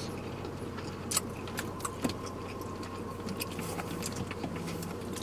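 Steady low hum inside a car's cabin, with scattered small clicks and crinkles from eating and from handling a plastic water bottle; the two sharpest clicks come about a second and two seconds in.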